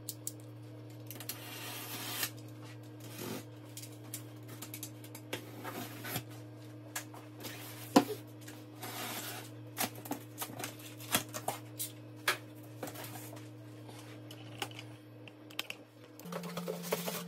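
Box cutter slicing through packing tape on a cardboard box, then the cardboard flaps being handled and pulled open: an irregular run of clicks, short scrapes and cardboard rustling.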